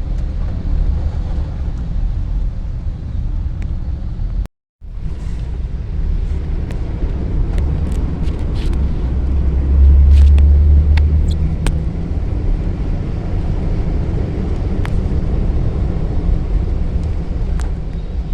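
Steady low rumble of road vehicles in wet traffic, louder about ten seconds in, with scattered short clicks. The sound cuts out completely for a moment about four and a half seconds in.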